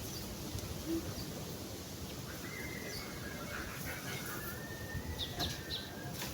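Birds calling over steady outdoor background noise: one thin high note held for about three seconds from midway, with a few short high chirps near the end.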